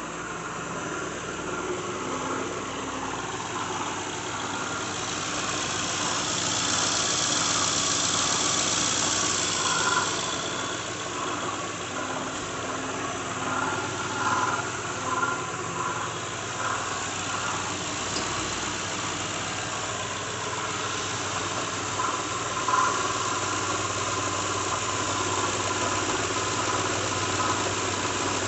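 2006 Lincoln Town Car's 4.6-litre V8 idling, with a whirring and an irregular rattle that the owner puts down to a failing harmonic balancer.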